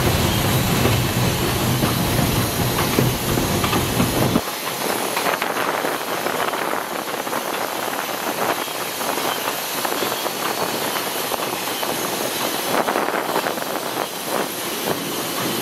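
Everett Railroad 2-6-0 steam locomotive #11 running, heard from its cab: a steady hiss of steam with the clatter of wheels over the rails. About four seconds in the low rumble cuts out suddenly, leaving mostly the hiss and clatter.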